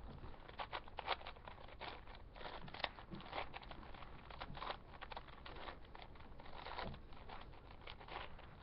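Plastic layers of a 4x4 Rubik's cube being turned by hand: irregular clicking and scraping, several clicks a second. The cube is not lubricated, as it should be for smooth turning.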